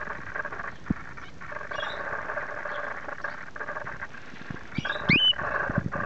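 Cockatiels and other aviary birds chattering in a steady din, with one loud rising whistle about five seconds in. A few low knocks, mostly near the end.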